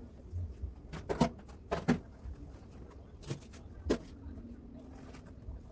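Several sharp knocks and clatters, about five between one and four seconds in, from things being handled and moved in a fridge that is being cleaned out.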